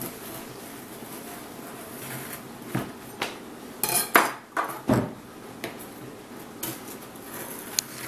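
Kitchen knives clinking and knocking against a metal baking sheet and against each other while cookie bars are cut. There is a cluster of sharp knocks about halfway through and a few single clicks later.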